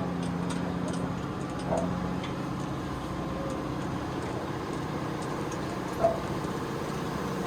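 Steady engine and road noise of a vehicle, a 4x4 truck, heard from inside, with a low steady hum and a couple of brief knocks about two seconds and six seconds in.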